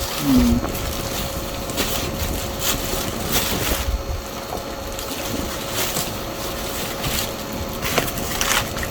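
Rustling and handling of cardboard and packing material around a boxed computer, with scattered light clicks and knocks, over a faint steady hum.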